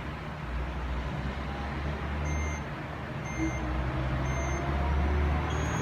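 Heat press timer beeping three times, about once a second, as the 15-second press counts down, over a steady low hum.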